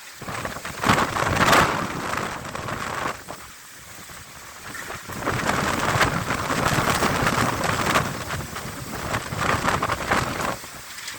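Heavy rain falling, a dense hiss that swells and eases in waves, louder about a second in and again from about five seconds in, with a quieter lull around four seconds.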